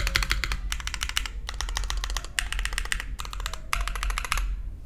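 Fast typing on a Velvet Pro HHKB-layout mechanical keyboard with BSUN switches, stock-lubed with swapped springs: rapid key clacks in quick bursts with brief pauses, dying away shortly before the end.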